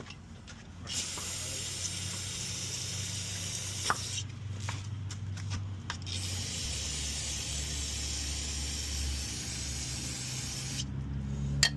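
A hissing spray in two long bursts, the first about three seconds long and the second about five, with a few clicks and knocks in the gap between them.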